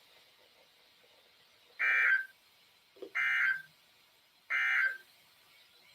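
Three short bursts of SAME digital data tones from NOAA Weather Radio, each about half a second long and a second apart. They are the End of Message signal that closes a required weekly test broadcast.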